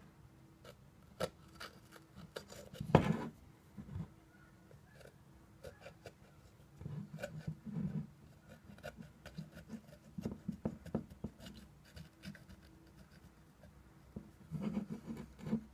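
Knife blade scraping and cutting through masking tape along the edge of a metal thermostat housing: intermittent scratches and small clicks, with a louder knock about three seconds in.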